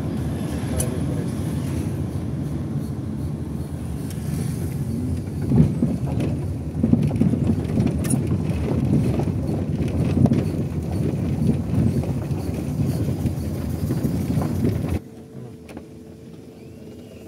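Low, uneven rumble of a vehicle driving over a rough stone street, with a few sharp knocks. It drops off suddenly to a faint hum near the end.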